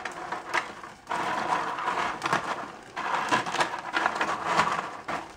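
Crisp fried murukku pieces being tossed and mixed by hand in a metal tray: a dense, dry crunching rustle with many small clicks, starting about a second in.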